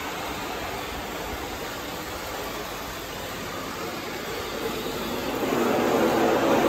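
Small motor of a cardboard model JR 205 electric commuter train running along cardboard track, a steady rumble that gets louder about five and a half seconds in as the train passes close by.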